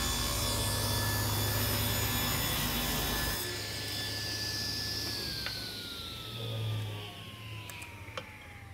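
Table saw ripping a small piece of wood, the motor running with a steady hum. About three and a half seconds in the hum drops away and the blade's whine holds, then falls steadily as the saw spins down. A few light clicks come near the end.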